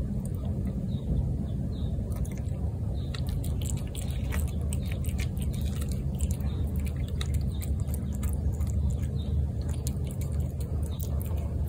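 A cat eating wet cat food off a plate: irregular wet chewing and smacking clicks, over a steady low rumble.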